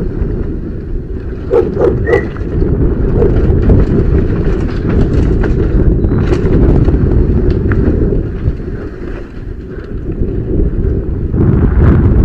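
Wind rushing over a helmet camera and the clatter and rattle of a downhill mountain bike pounding over rough concrete and steps at speed. There are a few sharp knocks about a second and a half to two seconds in.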